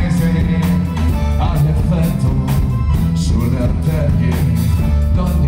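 Live band music with piano accordion, drum kit and electric bass, the drums keeping a steady beat of about two hits a second.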